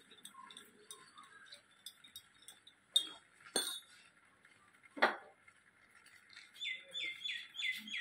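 Small birds on a corrugated metal roof: sharp taps and clinks on the sheet metal, with three louder knocks about three, three and a half and five seconds in. Near the end a run of four or five quick, falling bird calls.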